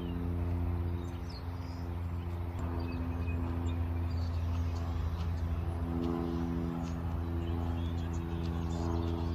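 Soft background music of sustained chords that change every few seconds, with faint bird chirps.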